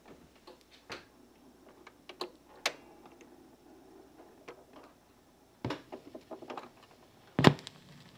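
Sony PS-LX250H fully automatic turntable's arm mechanism clicking and clunking as it cues the tonearm over the spinning record and lowers it. There is a louder thump near the end as the stylus sets down on the vinyl.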